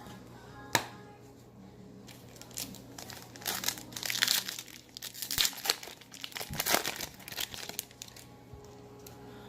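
Foil wrapper of a trading-card pack being torn open and crinkled. A single sharp click comes just under a second in, then a run of crackling bursts over about five seconds.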